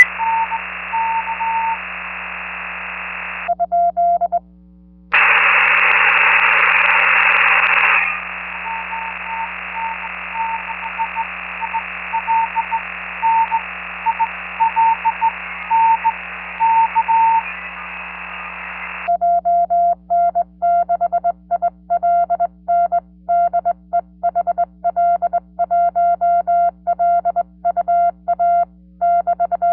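Amateur radio transceiver on the 40 m band working Morse code (CW): a distant station's signal beeps faintly through steady receiver hiss, with a loud rush of static for about three seconds starting about five seconds in. About two-thirds of the way through, the hiss drops out and the rig's louder, clean sidetone takes over in an on-off Morse rhythm as the operator sends by hand on a GHD GT705A straight key.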